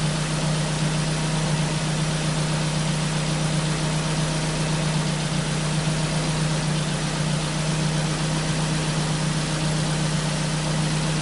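Ford Focus engine idling with a steady, even hum. The misfire is gone after a faulty sensor was replaced.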